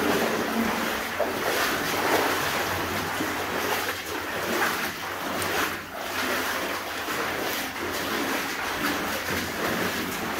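Footsteps crunching on the rubble floor of a mine tunnel, mixed with clothing rustle and handling noise on the moving camera, a steady noisy scuffle with no clear single event.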